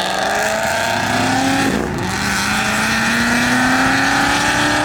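Ford Mustang engine accelerating hard while pulling away, its pitch rising through one gear, a shift about two seconds in, then rising again through the next gear.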